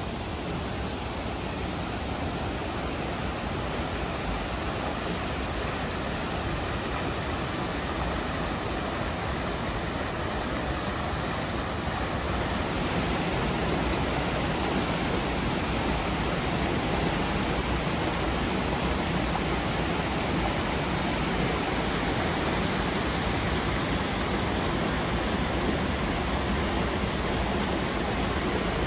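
Mountain stream rushing over boulders and small cascades: a steady rush of water that grows a little louder about twelve seconds in.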